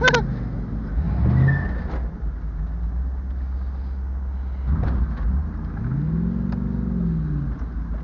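Car's 350 V8 running with a steady low rumble, heard from inside the cabin while driving. About six seconds in, the engine revs up and falls back over roughly a second and a half.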